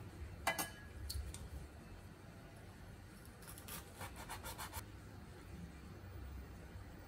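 Cleaver-style kitchen knife sawing through a rice-paper roll onto a wooden cutting board: a quick run of about ten short scraping strokes in the middle. Before it, a sharp metallic clink about half a second in, and a lighter tap just after.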